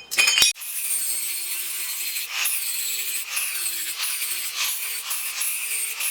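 Loud clatter at the start, then a steady rasping of a hand saw or file working material, in repeated strokes about one a second.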